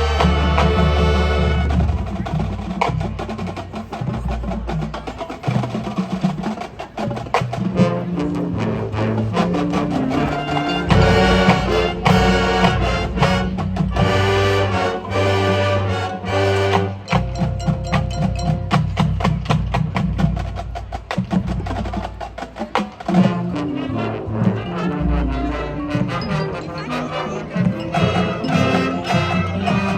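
High school marching band playing its field show: brass and wind parts over drums and percussion, with a constant run of sharp percussion hits.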